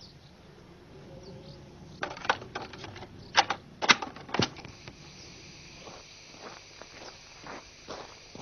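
Mechanical piano-key buttons of a portable cassette recorder pressed down, a run of sharp plastic clunks about two to four seconds in, followed by fainter scattered ticks.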